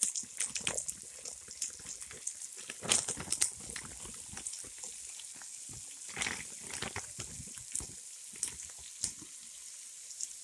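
Oil sizzling in a pan as frosted frozen spinach drops onto frying onions, green onions and pepper, with a steady hiss and irregular crackles and spits, heaviest about three and six seconds in.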